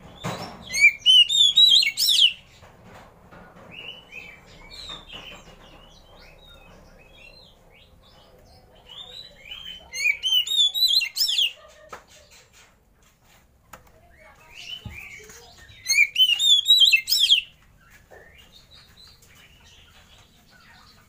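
Oriental magpie-robin singing in three loud bursts of quick whistled notes that step upward, near the start, about ten seconds in and about sixteen seconds in, with softer chirps between.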